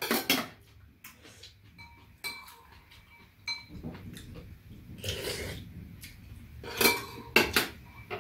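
Metal spoon and chopsticks clinking and scraping against bowls while eating soup: scattered light taps, a few short ringing clinks, and louder clatters about five seconds in and near the end.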